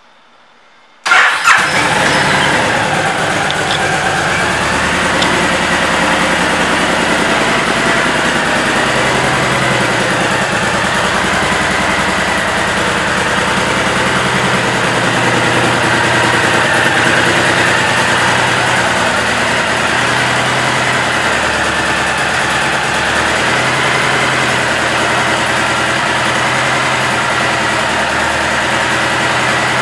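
2015 Honda Interstate 1300's liquid-cooled V-twin engine started about a second in, catching at once, then idling steadily.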